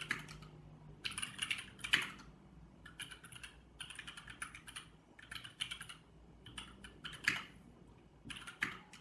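Typing on a Jupiter75 mechanical keyboard fitted with GMK keycaps: quick runs of keystroke clacks broken by short pauses, with a few louder strokes standing out.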